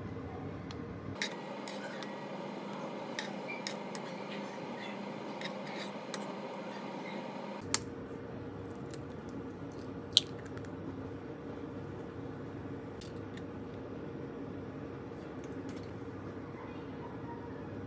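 Kitchen food-prep sounds: a metal spoon clinking and scraping against pan and bowls, with scattered light taps over a steady background hum, and one sharper tap about ten seconds in.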